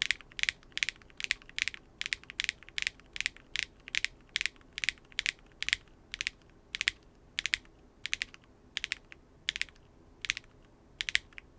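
Cyan mechanical keyboard switches being typed on: a steady run of clacky keystrokes, about three a second, that stops near the end.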